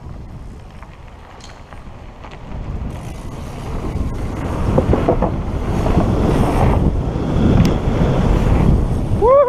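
Wind rushing over a helmet-mounted camera and mountain-bike tyres rumbling over gravel, a wooden boardwalk and dirt, growing louder as the bike picks up speed downhill. Near the end a short whoop, rising then falling in pitch, cuts through.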